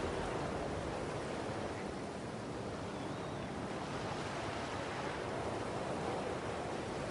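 Ocean surf washing on a shore, a steady, even rush with no single breaker standing out.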